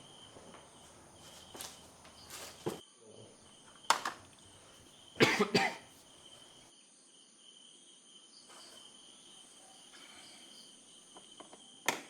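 Crickets chirring steadily, with a few short, sharp noises in between; the loudest is a cluster about five seconds in, and another comes near the end.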